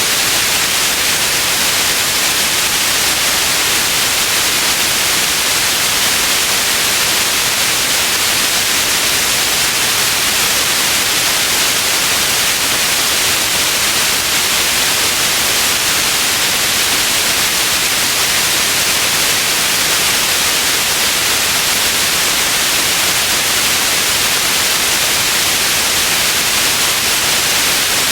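Steady white noise: an even, unchanging hiss, bright and weighted toward the high end.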